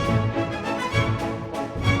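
Orchestral background music with strings and brass playing sustained chords.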